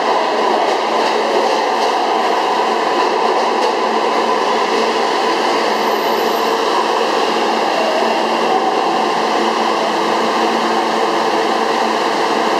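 An R143 New York City subway train running into the station alongside the platform and slowing to a stop, a steady loud rumble of wheels and motors with several steady tones held through it.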